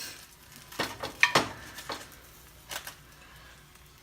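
Utensils clinking against a plate and dishes: a quick run of sharp clinks about a second in, then two more near three seconds.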